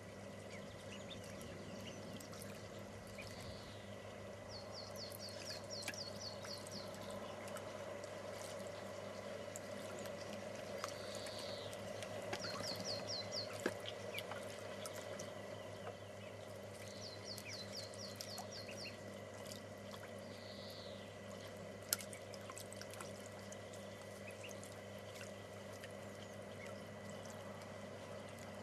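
Ducklings splashing and dabbling in a shallow tray of water: a steady patter of small splashes and drips. In the background a songbird repeats a short high trill three times, over a faint steady hum.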